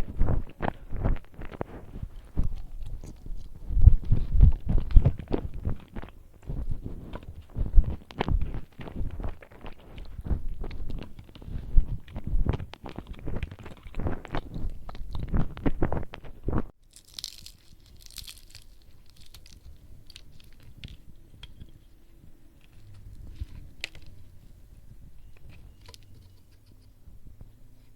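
Close-miked chewing and biting of food, dense and loud, which stops abruptly a little past halfway. After that it is much quieter, with a brief rustle and a few faint clicks.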